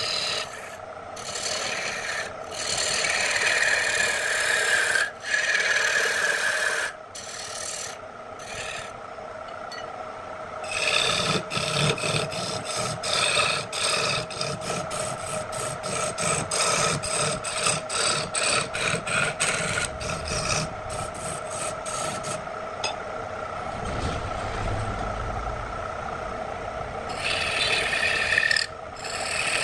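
Electric wood lathe running with a steady hum while a hand-held turning tool cuts into the spinning wood blank, a rough rasping scrape that comes and goes as the tool is pressed on and eased off. Through the middle it breaks into many quick short scrapes, then settles to a steadier cut before a loud stretch near the end.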